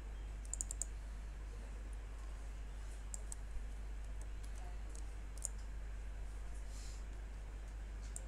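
Computer mouse clicks: a quick run of about four near the start, then single clicks every second or two, over a steady low hum.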